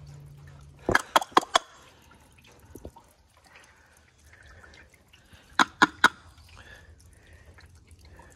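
Sharp plastic taps and clicks from the first-flush diverter's PVC drain cap as its clogged drain hole is knocked and poked clear. There is a quick run of four about a second in and three more around six seconds.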